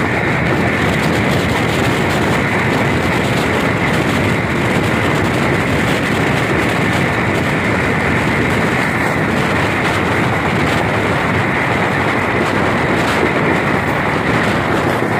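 Pakistan Railways passenger train running at speed, heard from the coach's open window: a steady rush of wheels on rail and passing air, with a high steady whine and occasional clicks over the rail joints.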